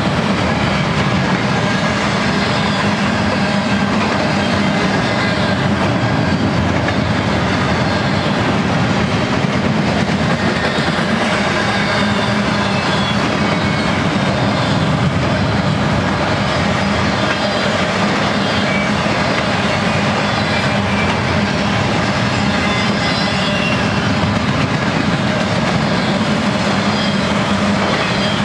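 Double-stack intermodal train's container well cars rolling past at close range: a steady, continuous rumble with the clatter of steel wheels over the rail joints.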